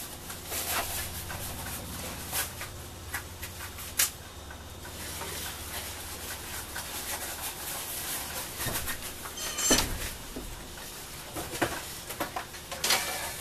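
Workshop handling noises: rustling and scraping with scattered clicks, a sharp knock about four seconds in and a louder thump near ten seconds, as materials and tools are handled at the bench for foam-filling a kayak float.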